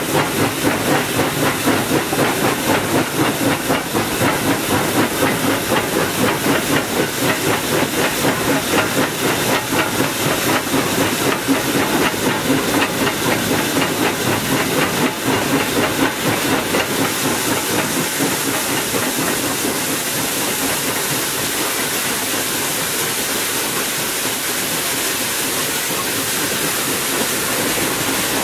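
Tweetsie Railroad No. 12, a narrow-gauge 4-6-0 steam locomotive, heard from inside its cab while running: hissing steam over a fast, even pulsing beat. About seventeen seconds in the beat fades and a steadier hiss carries on.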